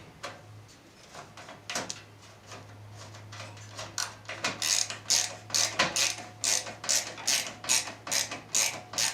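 A screwdriver turning a screw into a computer motherboard, with short scraping turns, scattered at first and then about two or three a second from about four seconds in, as the screw is driven home.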